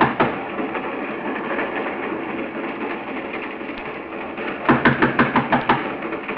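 Radio-drama sound effect of a train running: a steady rumbling noise, with a quick run of sharp knocks about five seconds in.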